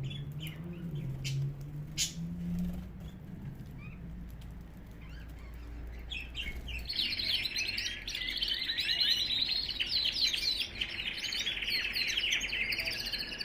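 Aviary birds chirping: scattered calls at first, then from about halfway a dense, continuous chorus of quick twittering chirps.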